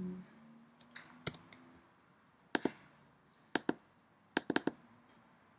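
About seven sharp clicks from a computer mouse and keyboard as design software is worked, single and in quick pairs.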